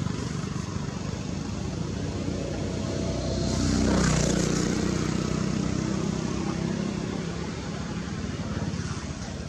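A motor's steady drone, as of a passing vehicle, growing to its loudest about four seconds in and then slowly fading.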